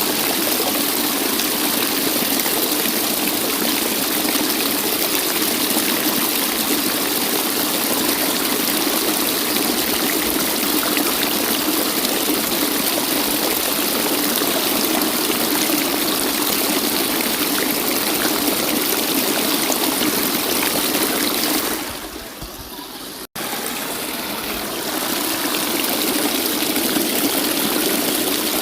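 Waterfall: steady, dense rushing of falling water. About 22 seconds in it dips and cuts out for an instant, then resumes.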